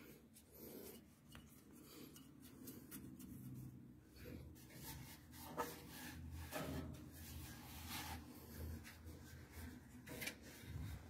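Faint rubbing and handling noise with scattered light clicks and one sharper knock about halfway through, over a faint low hum.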